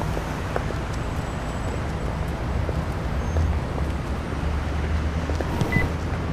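Steady low rumble of distant road traffic, with a brief faint high beep near the end.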